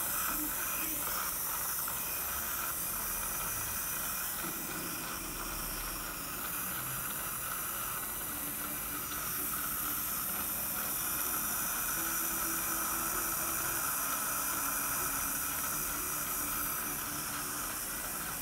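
Steady hiss of a dental suction mouthpiece drawing air and saliva from the patient's mouth.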